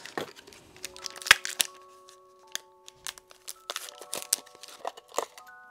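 Irregular sharp clicks and rattles of hands working a plastic RC transmitter's battery compartment: the cover screw undone, the cover taken off and AA batteries fitted. The loudest click comes about a second in.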